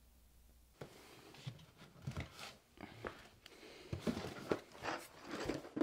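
Cardboard board-game box being slid out from a shelf and handled, an irregular run of scrapes, rustles and light knocks starting about a second in.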